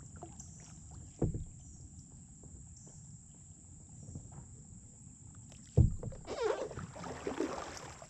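Kayak paddling: a knock about a second in and a louder knock near six seconds, then splashing and dripping water for the last two seconds as the paddle blade works the water.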